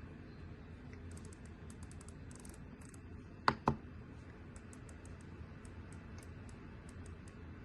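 Typing on an RK Royal Kludge S98 mechanical keyboard: a run of light, quick keystroke clicks, with two much louder clacks in quick succession about halfway through.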